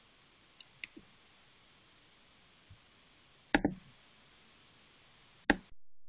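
Clicks and knocks on a computer desk, most likely mouse clicks, over a quiet hiss. There are a few light clicks about a second in, a sharp double click about three and a half seconds in, and one more sharp click near the end, just before the recording cuts off.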